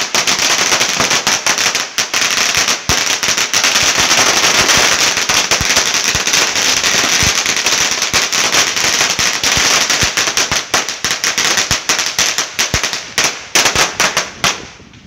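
A long string of firecrackers going off in a rapid, continuous crackle of pops. It thins to a few separate bangs near the end, then stops.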